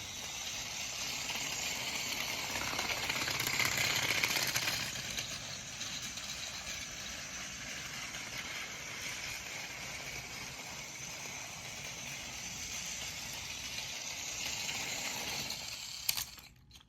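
Battery-powered Plarail Thomas toy train running on plastic track with its two coaches: a steady motor whir and wheel rattle, growing louder about four seconds in as it runs close by, then easing off, and going quiet near the end.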